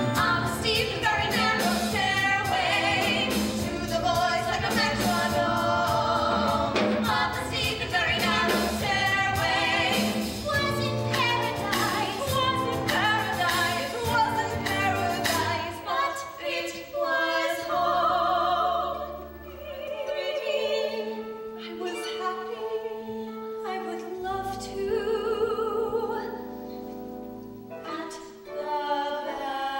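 Women singing a musical-theatre song in harmony with instrumental accompaniment. About halfway through, the accompaniment thins out and the voices hold long notes with vibrato.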